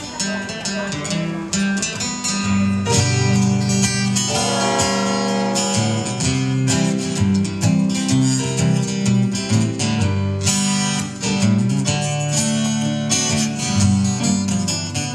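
Live instrumental intro of a jug-band blues tune: two acoustic guitars strumming with a keyboard. Low bass notes come in about two and a half seconds in.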